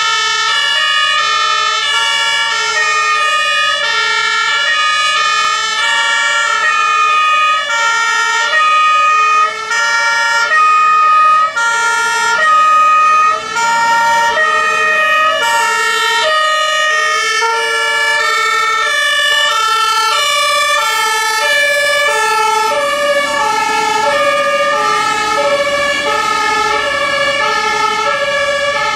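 Several German two-tone fire-engine sirens (Martinshorn) sounding at once, each stepping between a high and a low note about once a second, out of step with one another as the fire vehicles drive along in convoy. Truck engine and tyre noise grows near the end.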